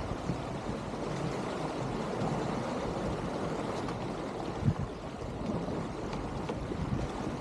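Water rushing and gurgling along the hull of a sailboat under way under sail, a steady wash, with one brief knock about two-thirds of the way through.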